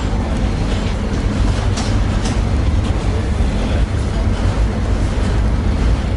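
Tatra T6B5SU tram running along the track, heard on board: a steady low rumble of the running gear, with a couple of sharp clicks about two seconds in.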